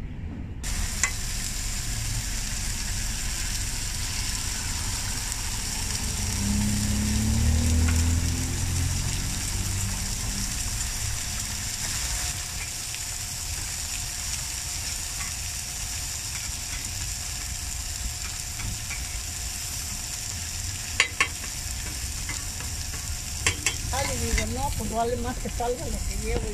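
An egg frying on a hot flat-top griddle, with a steady sizzle. A low rumble swells and fades about a third of the way in. A few sharp clicks of the metal spatula on the griddle come near the end.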